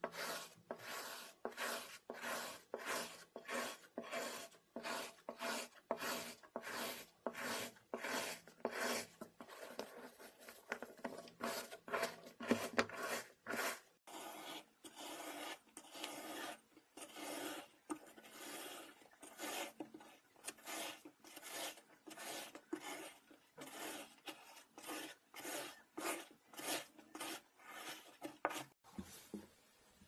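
A knife and a metal scoop slicing through packed kinetic sand, making a run of crunchy, grainy scraping cuts at about two a second.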